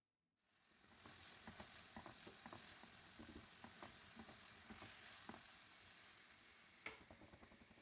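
Food frying in a pan: a steady, quiet sizzle with scattered small crackles, fading in over the first second, and one sharp click about seven seconds in.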